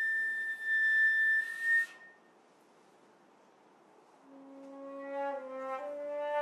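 Solo flute. A long, high held note ends with a breathy edge about two seconds in. After a pause of about two seconds, a low note enters softly, swells, and steps slightly up in pitch near the end.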